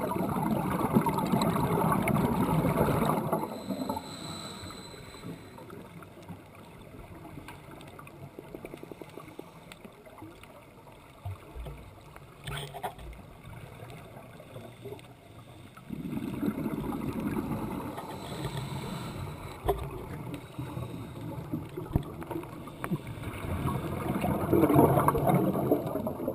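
Scuba diver's exhaled breath bubbling out of the regulator underwater, in surges of a few seconds: at the start, again about sixteen seconds in, and near the end, with a quieter stretch between. A brief thin hiss, likely an inhaled breath through the regulator, comes about four seconds in.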